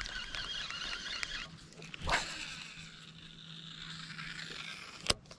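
Spinning reel being cranked: a whirring with fine rapid clicks for about the first second and a half. Two sharp clicks follow, one about two seconds in and a louder one near the end.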